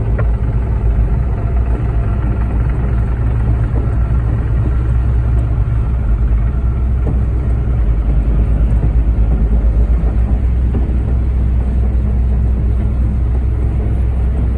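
Concrete mixer truck's diesel engine running steadily with a deep drone during the pour.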